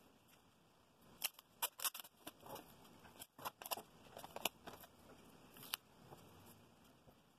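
Clear plastic packing tape crackling and clicking as it is handled and pressed down, a scattered run of sharp crackles for a few seconds after a quiet start.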